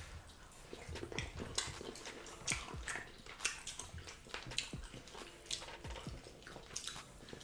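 Close-up eating sounds: wet chewing and lip-smacking, with fingers picking at fish in pepper soup, as irregular short smacks and clicks.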